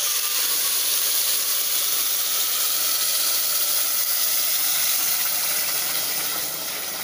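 Water poured from a jug into a hot aluminium pressure cooker of fried rice and lentils, a loud steady hiss and sizzle as the water hits the hot pot; it starts suddenly and eases off near the end.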